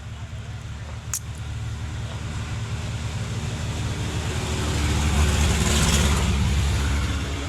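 A motor vehicle passing close by: its engine rumble and tyre noise swell to a peak about five to six seconds in, then ease off. A single sharp click comes about a second in.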